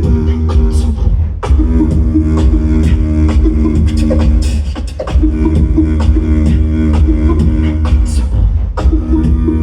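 Live beatboxing in a house groove: a sustained hummed vocal bass line under sharp mouth-made kicks and snares, about two hits a second.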